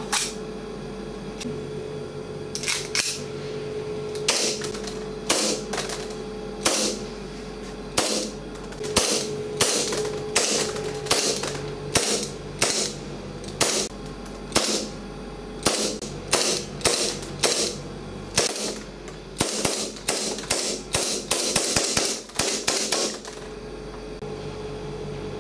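A 1911-style gas blowback airsoft pistol firing, each shot a sharp pop with the slide snapping back. It fires single shots about a second apart, then a quicker string of shots near the end.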